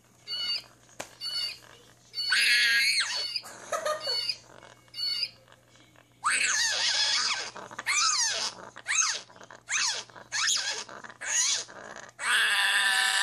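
African grey parrot squawking, a string of loud harsh calls, several falling in pitch, with short chirps in the first couple of seconds.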